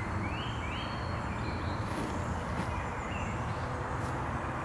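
Woodland ambience: a steady low background rumble with a few short rising bird chirps in the first second and a faint one later.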